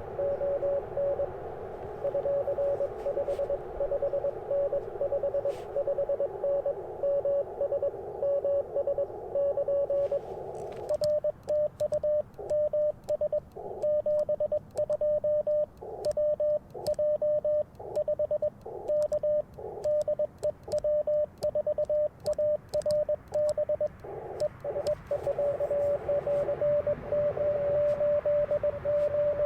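Morse code on an Icom IC-705 at 30 meters: first a station is heard as a keyed tone over the narrow CW filter's band hiss. About ten seconds in, the operator sends his reply on twin paddles: the transceiver's sidetone beeps in Morse rhythm with the paddle clicks, the hiss cutting out between characters, until the band hiss returns with a long steady tone near the end.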